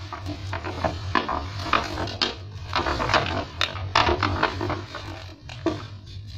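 Gift wrapping being handled and torn open, an irregular run of crinkling and rustling crackles.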